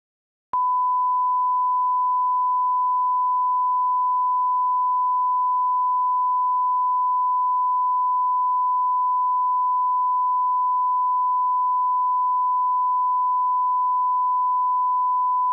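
A steady electronic beep tone at a single pitch of about 1 kHz. It starts abruptly about half a second in and holds unchanged at one level.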